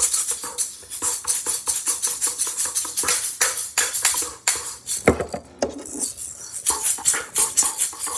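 A pair of plastic skull shakers shaken hard in a fast, steady rhythm, the beads inside rattling, with mouth beatbox sounds mixed in, most plainly about five seconds in.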